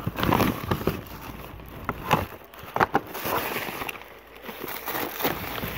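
A hand rummaging through plastic bags and packets in a plastic basket: crinkling plastic and small items shifting, with a few sharp clicks or knocks about two to three seconds in.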